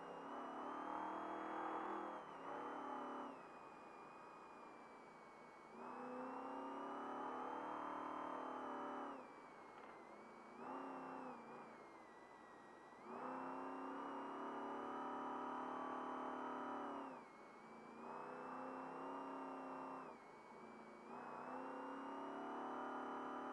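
Trophy truck engine pulling hard at high revs, the throttle coming off and going back on again and again. It gives loud pulls of one to four seconds with short dips in between.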